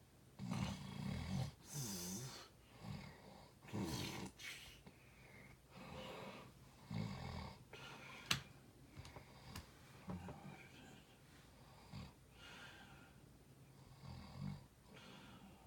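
Snoring: a series of rough, uneven snores with irregular gaps between them, closer together in the first half, plus one sharp click about eight seconds in.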